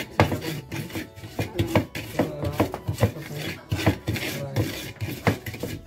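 Pestle grinding spices in a cobek, a traditional Indonesian mortar, in a steady rhythm of short scraping rubs, about three strokes a second.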